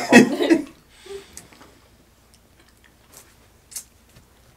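A short burst of laughter at the start, then faint, scattered clicks and ticks of snow crab shells being picked through by hand.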